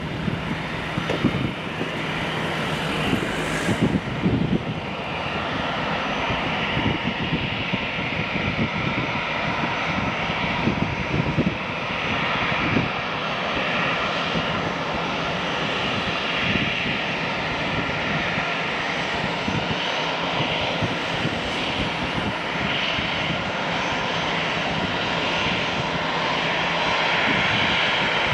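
Airbus A321 jet engines running with a steady rushing whine, with wind buffeting the microphone in low thumps.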